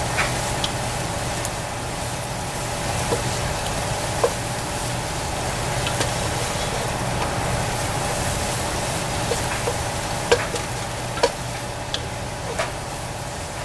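Diced vegetables, bacon and scrambled egg sizzling in a nonstick pot as a wooden spoon stirs and scrapes through them, with a few sharp knocks of the spoon against the pot. The watery sizzle comes from the vegetables giving off moisture while the egg cooks through.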